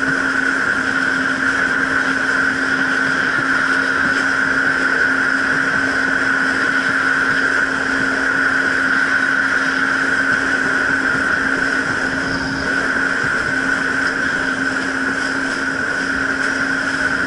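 Jet ski engine running at a steady cruising pitch while underway, over a steady rush of water and wind.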